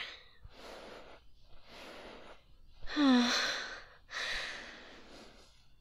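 A woman breathing audibly: two breathy breaths, a short voiced sigh about three seconds in that drops in pitch and then holds, then another breath.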